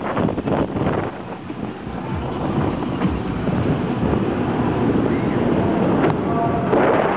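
Wind rushing hard over the microphone of an on-ride camera as the Fabbri Booster's arm swings it around, rising and falling in strength. A short pitched sound cuts in about six seconds in.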